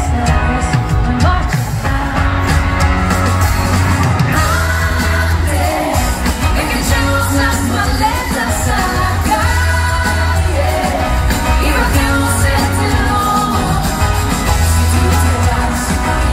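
Live pop-rock band playing a song, with a singer's lead vocal over electric guitar, bass and drums, heard from the audience in a large hall.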